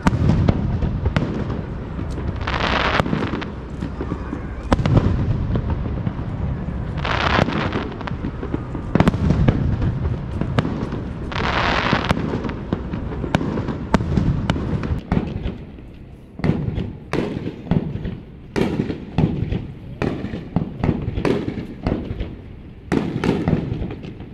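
Aerial fireworks display: shells bursting overhead with repeated booms and sharp cracks, coming in quicker succession in the second half.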